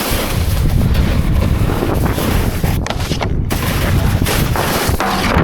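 Wind buffeting a helmet-mounted action camera's microphone in a heavy, steady rumble as a snowboard slides over snow, with a few sharp knocks.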